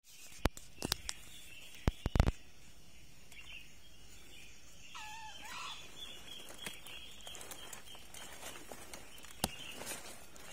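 Forest ambience with a steady high insect drone and a single wavering bird call about five seconds in. A few sharp clicks and knocks, the loudest sounds, come in the first two and a half seconds, and one more comes near the end.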